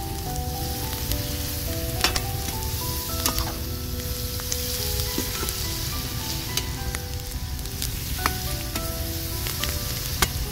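Eggplant, zucchini and peppers frying in a large aluminium pan, with a steady sizzle. A metal skimmer ladle stirring them clicks sharply against the pan a few times.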